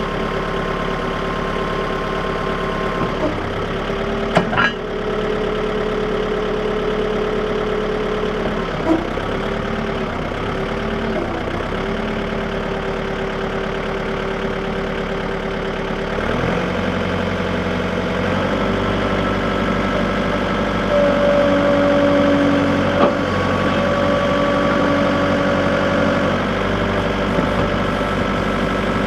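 John Deere 110 backhoe's engine running steadily, its pitch dipping briefly a few times and stepping up about halfway through, with a couple of sharp knocks about four seconds in.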